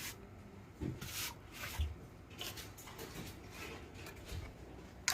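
Hands handling computer parts during assembly: a run of short scraping and rubbing sounds with a couple of dull thumps, and a sharp click at the very end.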